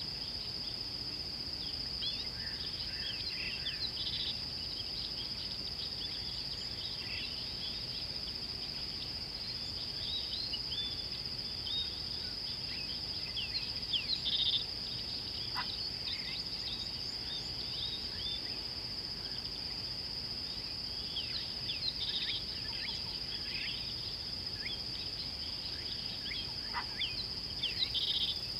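A steady, high-pitched insect drone with many short bird chirps and calls scattered over it, and a few brief louder calls.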